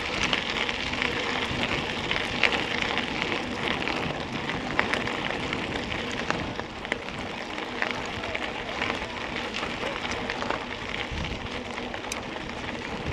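Mountain bike tyres crunching and crackling over a gravel road, with a steady stream of small clicks and rattles from the bike.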